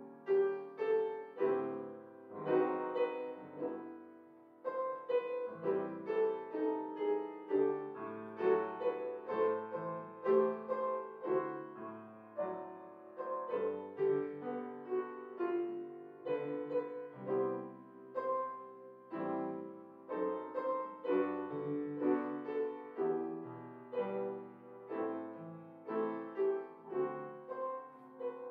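Solo grand piano playing an unhurried piece of melody over chords, a few notes a second, each note struck and left to ring.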